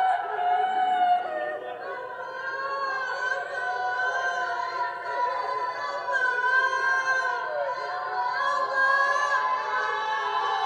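Worship singing: several voices singing together in held, gliding notes over soft music, with little bass.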